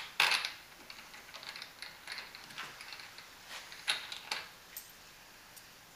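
Small metal hardware clicking and scraping as a washer and wing nut are handled and threaded by hand onto a stainless steel bolt. The loudest scrape comes just after the start, then scattered sharp clicks follow, dying away about five seconds in.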